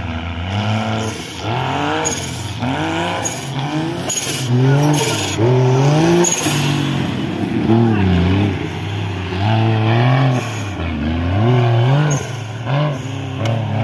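Off-road buggy's engine revving up and falling back again and again as it climbs over the mud humps of the course, its pitch rising and dropping about once a second.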